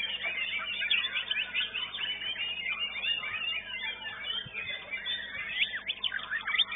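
Dense chorus of many white-rumped shamas (murai batu) singing at once: overlapping fast whistled phrases and chattering notes with no pause.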